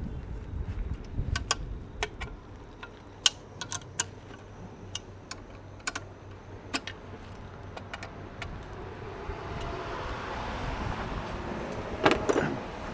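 Hand tools and small fasteners clicking and tapping on metal as a plastic linkage guard is screwed onto an aluminium bash plate. Scattered sharp clicks come through the first half, then a rising rustle and a brief louder clatter about twelve seconds in.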